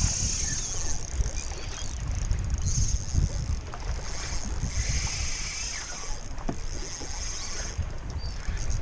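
Choppy water slapping against a plastic kayak hull, with wind buffeting the microphone. A high hiss comes and goes over the top.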